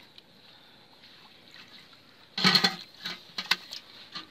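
Wet splashes and patter as small fish are handled in a wet mesh net and dropped into a metal pot: a short loud splash a little over two seconds in, then a few lighter, separate splashes.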